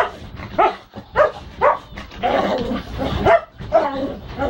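Dog barking in a quick run of short, separate barks while playing in a frenzy.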